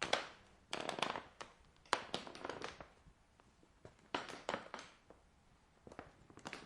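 Wooden boards creaking and cracking in short bursts of dry clicks and snaps, about five bursts with brief pauses between, like weight shifting on an old wooden floor.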